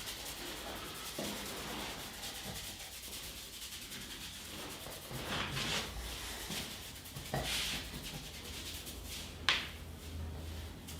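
Hands rubbing and kneading skin and hair during a head and face massage: a continuous rustling rub with a few louder swells, and one sharp click near the end.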